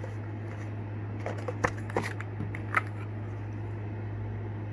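Cardboard box and packaging being handled: a few quick rustles and clicks between about one and three seconds in, over a steady low hum.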